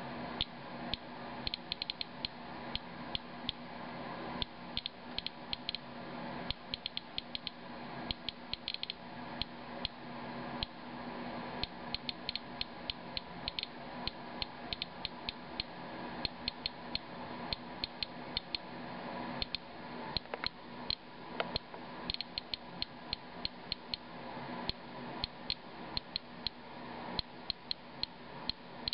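Inspector Alert Geiger counter clicking at random intervals, a few clicks a second, over a faint steady hum. Each click is one detected count; the rate, about 120 to 200 counts per minute, is several times the background of about 40 and marks a radioactive rain sample.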